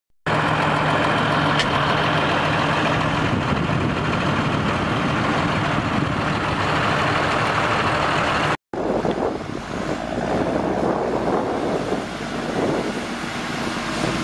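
Heavy truck's engine running steadily under load as it struggles in deep mud. It cuts off abruptly about two-thirds of the way in, and another stretch of vehicle engine noise follows that rises and falls unevenly.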